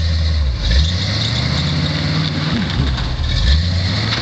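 Lifted pickup truck's engine running under light throttle, its note rising for about a second and a half from about a second in, then dropping back.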